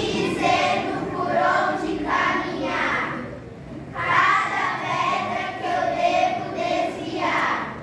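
A group of children singing together in unison, in two phrases with a short break about halfway through.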